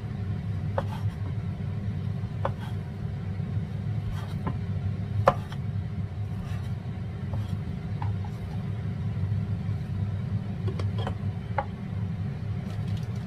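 Cleaver slicing through a fried fish cake and tapping on a bamboo cutting board, a sharp knock every second or two with the loudest about five seconds in, over a steady low hum.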